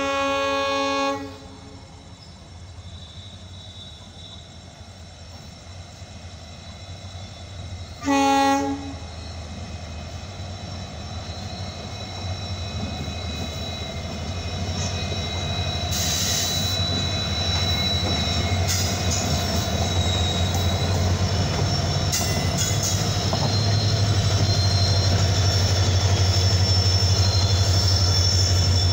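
Two Indian Railways diesel freight locomotives, a WDG4D and a WDG4, with a twin-tone air horn. The horn ends about a second in and gives one short blast about eight seconds in. Then the locomotives' two-stroke EMD diesel engines run with a low steady drone that grows louder as they come near and pass, over the rattle of wheels on the rails and a thin high squeal.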